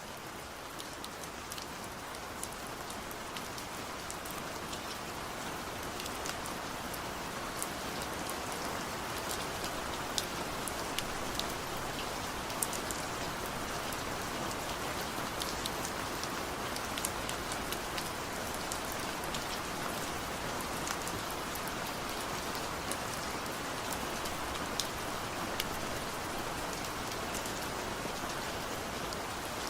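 Steady rain falling: a dense, even hiss with many sharp individual drop ticks on top. It grows a little louder over the first several seconds.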